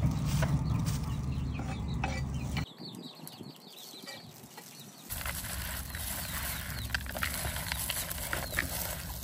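Chickens clucking in the background, with scattered light knocks and clicks over a low rumble that drops out for about two seconds near the middle.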